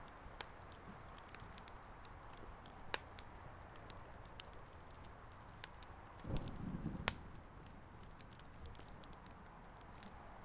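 Wood fire crackling, with irregular sharp pops over a faint steady hiss; a brief low rumble a little past the middle, just before the loudest pop.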